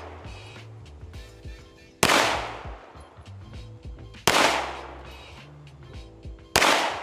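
Three shots from a ported 9mm ARC Division Reactor Glock 43x firing +P+ ammunition, slow aimed fire about two and a quarter seconds apart, over background music.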